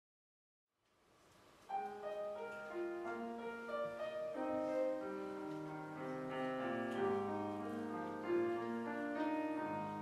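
Grand piano playing a flowing passage of overlapping notes, coming in about two seconds in after near silence and faint hall noise.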